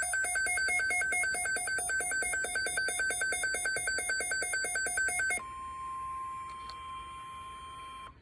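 Weather radio EAS alert: rapid electronic alarm beeping, about five beeps a second, for roughly five seconds. It then switches to a quieter, steady single-pitch tone, the NOAA Weather Radio warning alert tone, which stops just before the end.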